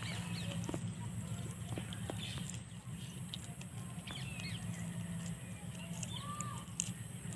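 A few faint bird chirps over a steady low hum, with scattered soft clicks as hands work a small fish free of a fine nylon fishing net.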